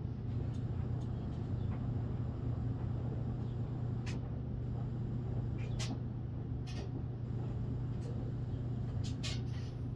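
Gold pan being worked in a tub of muddy water, with a few short splashes and drips, over a steady low hum.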